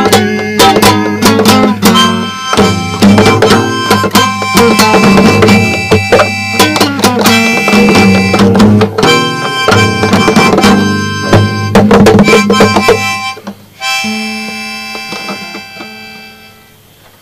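Strummed guitar with a harmonica playing over it, the instrumental ending of a song. About thirteen seconds in the strumming stops on a last chord that rings and fades away.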